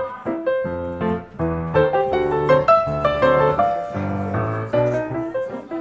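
Background piano music: a melody of short notes over a lower bass line.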